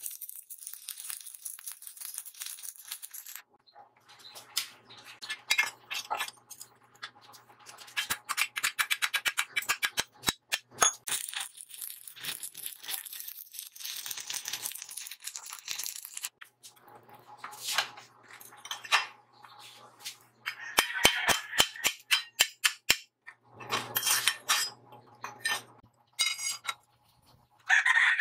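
Electric arc welding on steel: the arc crackles and sputters in several runs with short breaks between them, and a steady low hum runs under the crackling.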